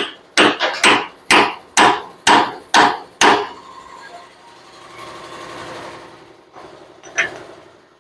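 Hand hammer striking the steel steering knuckle on a Ford Cargo 1721 front axle, seven or eight ringing metallic blows about two a second, driving the knuckle fully home on the axle beam. The blows stop after about three seconds, followed by a softer noise and one more knock near the end.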